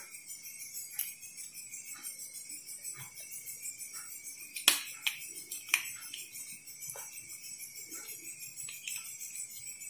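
Sharp plastic clicks and taps as a Philips blender's black push-button switch assembly is handled and pressed into its housing, the loudest pair a little after halfway. Under them runs a steady high-pitched chirring background drone.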